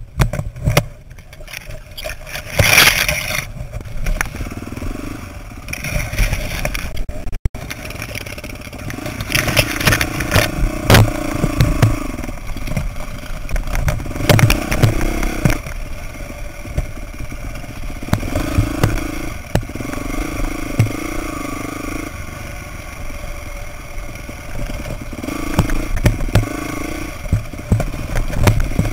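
Dirt bike engine running at low revs, the throttle opening in short stretches, while the bike clatters and knocks over rocks. Branches scrape against the bike early on.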